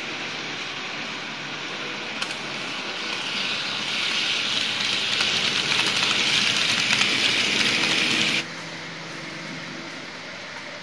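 N-scale model train running past close by: a hissing rattle of small wheels on the rails with the whirr of its motor, growing louder as it approaches. It cuts off suddenly about eight seconds in, leaving a quieter steady hum.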